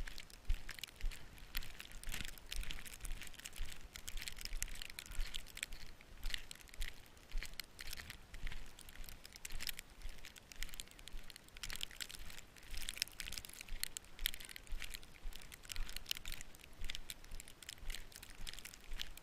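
Footsteps crunching through deep snow at a steady walking pace, about two steps a second.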